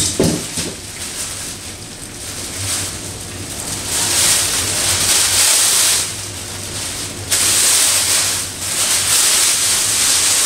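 Clear plastic bag rustling and crinkling as it is pulled off a bicycle wheel, in loud stretches with short lulls between.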